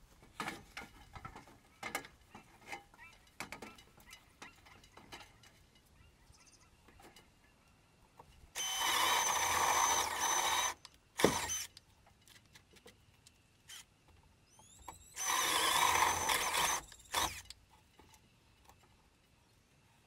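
Power drill boring 2-inch holes through wooden rafter blocking with an Irwin Speedbor bit: two runs of about two seconds each with a steady whine, each followed by a short burst. Light knocks and rustles come before the first run.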